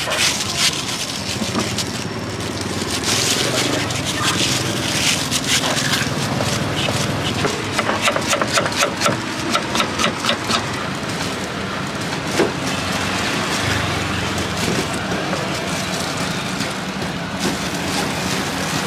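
Food-stall utensils clattering and scraping over street background noise, with a quick run of rapid clicks in the middle and faint voices behind.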